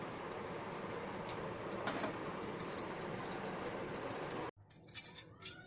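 Steady hiss of a gas stove burner on a low flame, with faint crackles from dried peepal leaves burning in a steel vessel. The hiss cuts off suddenly about four and a half seconds in, and a few light clicks follow.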